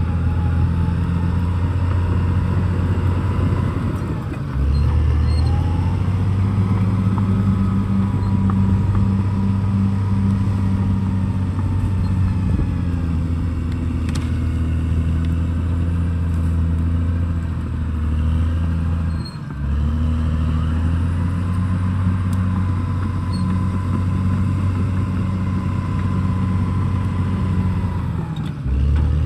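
Caterpillar D6R XL bulldozer's diesel engine running steadily at working load. The engine note dips and shifts briefly three times: about four seconds in, near the middle, and just before the end.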